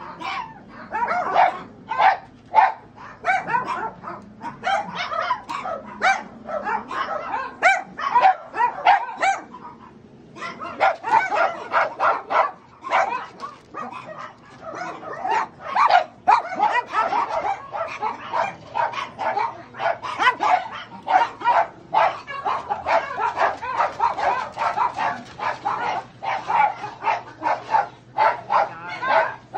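Many dogs barking at once, non-stop and overlapping, with a brief lull about ten seconds in.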